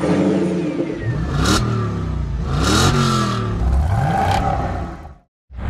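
Car engine revving hard about three times, its pitch climbing and falling with each rev, then cut off abruptly shortly before the end.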